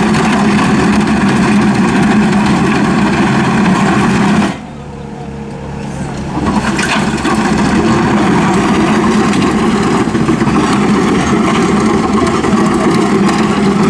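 Diesel machine running a boom-mounted trenching cutter as it mills a cable trench through road gravel and soil, a loud steady churning over the engine. About four and a half seconds in the cutting noise drops away sharply, leaving a lower engine hum, then builds back up a second and a half later.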